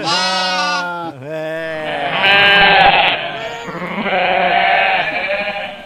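Sheep bleating: about four long, wavering bleats one after another, the loudest in the middle.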